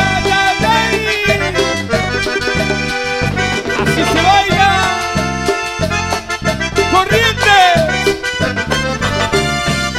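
Live Latin dance band playing an instrumental break between sung verses: a melodic lead over a steady, repeating bass line and percussion.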